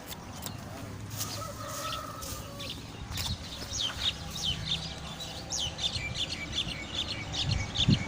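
Birds chirping: a run of short, high, falling chirps, several a second, that grows busier through the second half.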